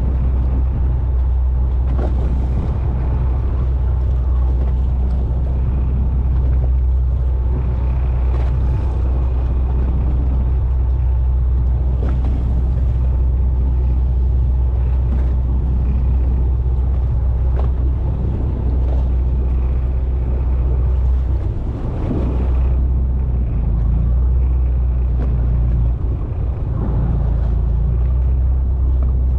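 Steady low hum of a fishing boat's diesel engine running, with a few light knocks and clicks on board.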